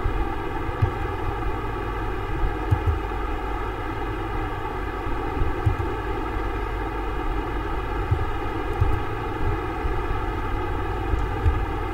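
Steady rushing background noise with occasional low thumps.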